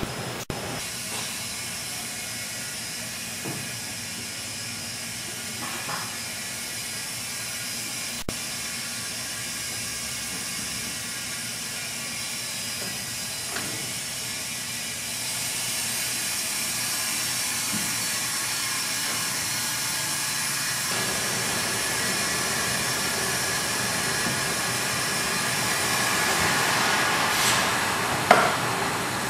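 Steady hiss of air being drawn through a Schmalz Jumbo vacuum tube lifter, powered by its vacuum blower, while it holds and moves a load; the hiss grows somewhat louder in the second half. A short, sharp sound stands out near the end.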